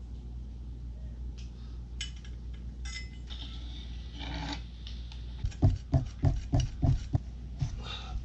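Hand work on a bicycle's steel front fork and headset parts: light clicks and handling noises, then a quick run of scraping strokes, about three a second, in the second half, as paint is cleared from the fork's bearing seat.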